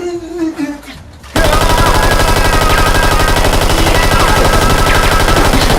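Rapid automatic fire like a machine gun, starting suddenly about a second and a half in and running on as one dense unbroken volley. A voice is heard briefly before it.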